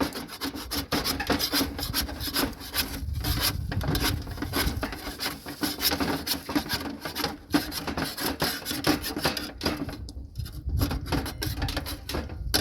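Continuous rough scraping and rubbing, full of small irregular clicks.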